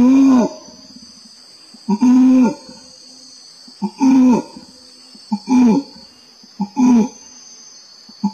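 Male orangutan's long call: a run of about five loud calls, each rising then falling in pitch, coming closer together from about two seconds apart to just over one. A steady high insect buzz runs underneath.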